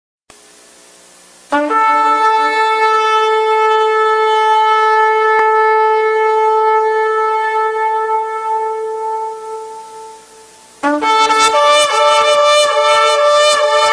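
A shofar is blown: one long, steady blast starts about a second and a half in and fades out around ten seconds. A second blast follows about a second later, broken into rapid short pulses.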